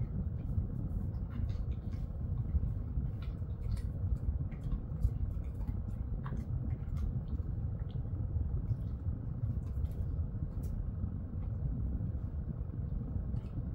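A Jindo-mix dog chewing a treat, with many short crunchy clicks scattered irregularly, over a steady low rumble.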